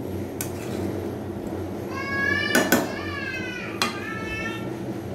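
A metal spatula clacking and scraping against a steel kadhai as cooked rice is stirred, a few sharp knocks standing out, over a steady low hum. About two seconds in, a high-pitched wavering cry, like a meow, sounds for about a second and falls away at its end.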